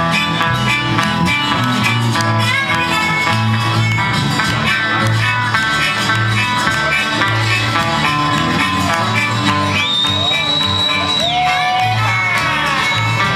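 Country-folk band playing an instrumental break: guitars over a steady pulsing bass, with a lead line that holds a long, bending high note about ten seconds in.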